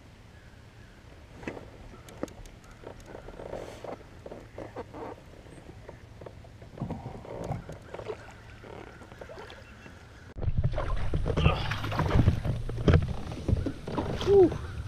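Handling sounds aboard a fishing kayak: scattered light clicks and knocks of rod, reel and hull over quiet water. About ten seconds in the sound jumps much louder, with a steady low rumble of wind on the microphone and clatter of the reel being cranked.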